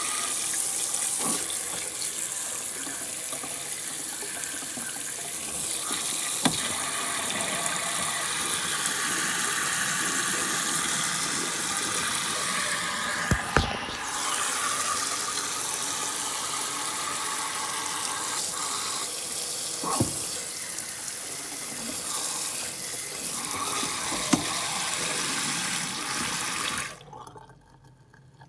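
Water running steadily from a kitchen faucet into the sink and splashing over a small die-cast toy car, with a few brief knocks. The tap is shut off about a second before the end, and the running water stops suddenly.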